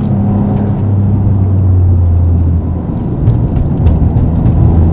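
Car engine droning steadily, heard from inside the cabin while driving, with a short dip in level about two and a half seconds in.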